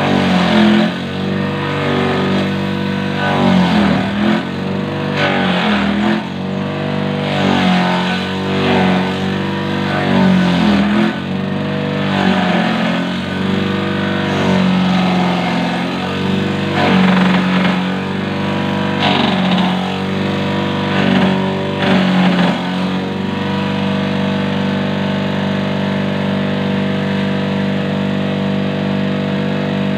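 Homemade banana-stem chopper driven by the electric motor of an old water pump, shredding banana stem as pieces are fed in. The motor's hum dips in pitch each time the blades bite into the stem, every second or two, with a rough chopping noise. After about 23 seconds it runs unloaded with a steady hum.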